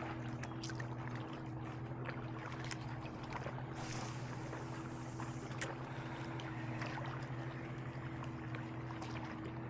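Boat motor running with a steady low hum, with scattered light clicks and a brief high hiss about four seconds in.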